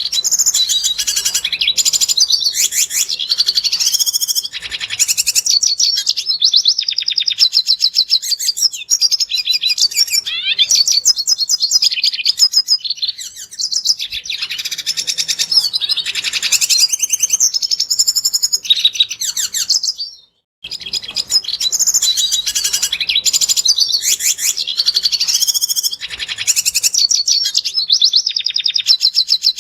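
Red siskin singing a long, fast twittering song of high chirps, buzzy notes and trills. It cuts off suddenly about two-thirds of the way through and starts again a moment later.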